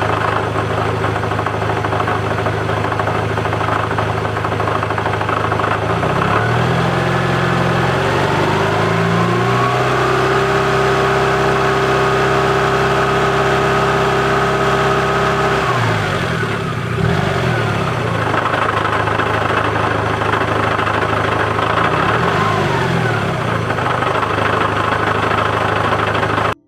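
Daihatsu Copen's engine running under way: it rises in pitch about six seconds in, holds steady, then drops away about sixteen seconds in, with another pitch change near the end.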